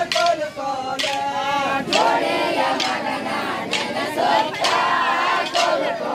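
A group of men and women singing a folk song together in chorus, with sharp percussive strikes keeping the beat about once a second.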